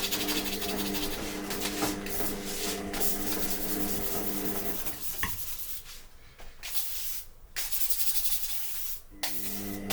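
Continuous scratchy rubbing and scraping of glue residue being worked off a 3D printer's spring steel build sheet. Under it runs a steady hum that drops out about five seconds in and comes back near the end.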